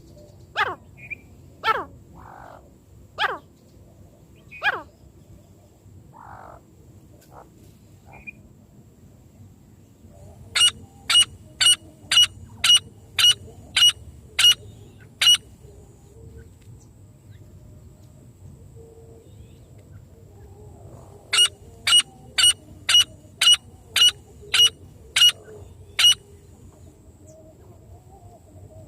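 Francolin (teetar) calling: a few sharp, downward-sweeping notes at the start, then two runs of about nine loud, evenly spaced notes at roughly two a second, slowing slightly at the end of each run. One run comes in the middle and one near the end.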